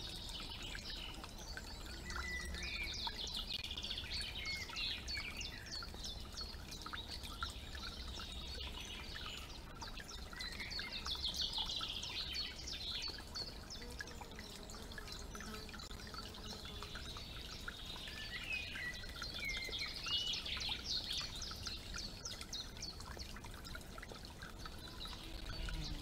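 Several songbirds singing and calling in overlapping chirps, trills and short whistles, over a faint trickle of shallow stream water and a steady low rumble.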